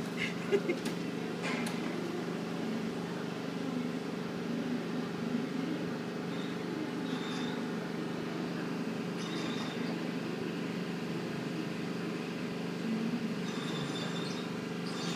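Steady workshop background hum made of several low tones, with a few light clicks near the start and faint scratchy handling sounds of the paper funnel and container.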